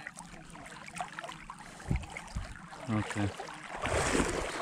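Shallow muddy floodwater sloshing and splashing as someone wades through it, the splashing getting much louder in the last second or so.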